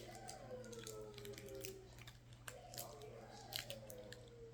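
Faint child's voice, two long murmured sounds that slide down in pitch, over small scattered clicks and crackles.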